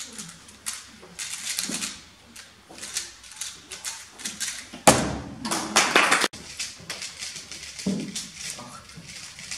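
Rapid clicking and clacking of a 3x3 speedcube being turned at speed during a timed solve. About five seconds in, a louder rush of noise from the room lasts over a second and cuts off abruptly, after which the quick clicking of turning resumes.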